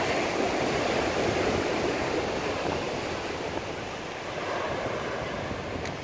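Mediterranean surf breaking and washing up a pebbly shore, a steady rush of waves that eases slightly about four seconds in.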